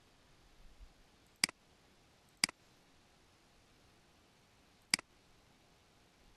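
Three single computer mouse clicks, the first two a second apart and the third about two and a half seconds later, over a faint steady hiss.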